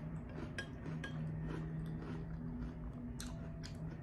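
Metal spoon clinking and scraping against a glass bowl as cereal and milk are scooped, a handful of light clinks spread over the few seconds, with a low steady hum underneath.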